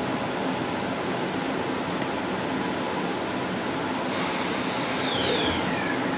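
Inside a moving electric suburban train: steady running noise of wheels on rails. About four seconds in, a high whine from the traction drive starts falling in pitch, as the train slows.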